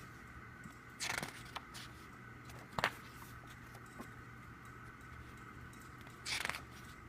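Paper and plastic album packaging handled in two brief rustles, about a second in and again near the end, with a sharp tap just before the middle. A faint steady hum runs underneath.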